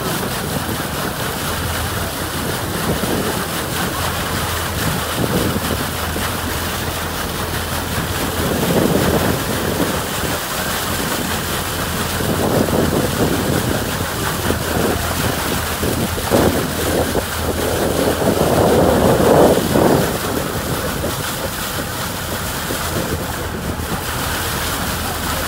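Water rushing and splashing at a moving boat's bow, with wind on the microphone and a steady low engine hum underneath. The rushing swells louder several times, most strongly about three quarters of the way through.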